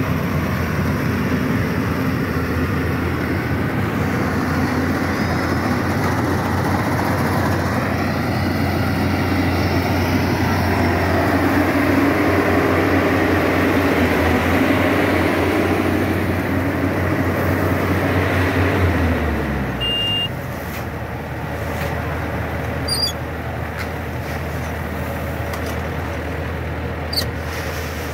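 Diesel engine of a Yanmar YH880 crawler combine harvester running steadily. A little over two-thirds of the way through, its speed drops and it settles into a lower, quieter run, as when it is throttled back. Two light clicks near the end.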